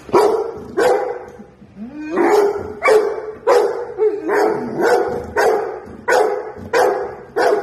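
A large pit bull-type dog barking repeatedly, about a dozen loud barks at roughly two a second, with a short pause after the first couple.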